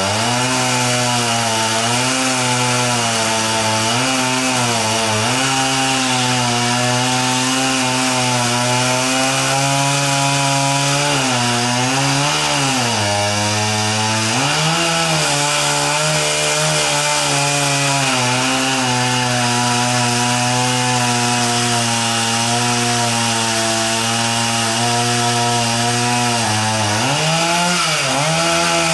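Chainsaw running at high speed, cutting into the dry wood of a dead tree trunk. The engine note sags and recovers again and again as the chain bites and is eased off, with deeper dips about halfway through and near the end.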